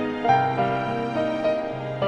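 Instrumental background music: a slow melody of held notes moving stepwise over a low sustained bass note.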